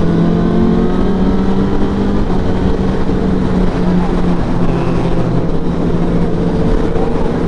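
Honda CBR1000RR SP's inline-four engine running at a fairly steady cruising speed, its pitch dipping slightly about midway, with wind rushing over the microphone.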